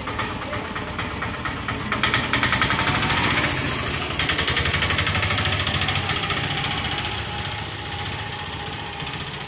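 Small engines idling with a rapid, steady putter: first an auto rickshaw's, then, after a change about four seconds in, a motorcycle's.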